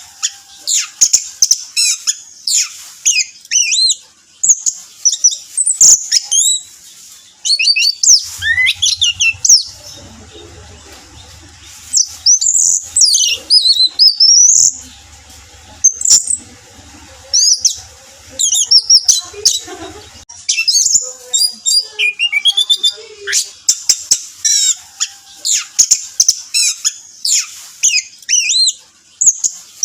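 Orange-headed thrush singing a loud, fast, varied song of high whistled notes that slide up and down, in bursts with short pauses between them.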